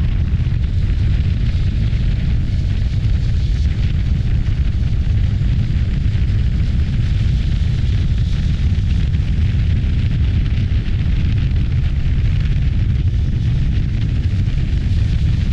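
Heavy, steady wind buffeting on the microphone of a riding motorcycle, a dense low rumble, with the Voge DS525X's engine running beneath it.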